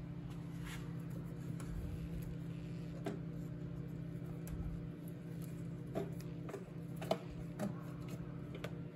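Hands pulling a motorcycle's rubber purge hose and plastic wiring connectors: a handful of light clicks and knocks, the sharpest about seven seconds in, over a steady low hum.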